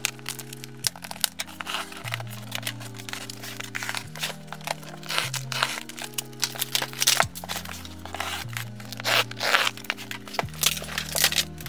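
Packing tape being sliced and torn and plastic strapping crinkling as a cardboard shipping box is cut open: a busy run of quick tearing and rustling sounds, over background music of sustained chords that change every second or two.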